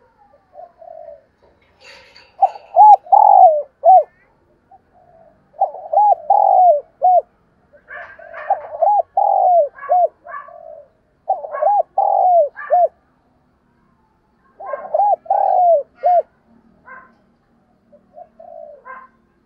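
Spotted dove cooing: about five phrases, each of three or four quick rising-and-falling coos, repeated a few seconds apart, with faint higher chirps in between.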